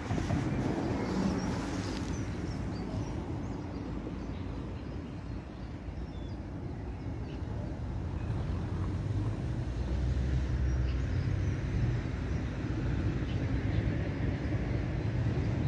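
Outdoor park ambience dominated by an uneven low rumble, with no distinct events.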